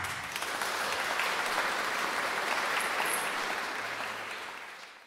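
Audience applauding, fading out over the last second or so.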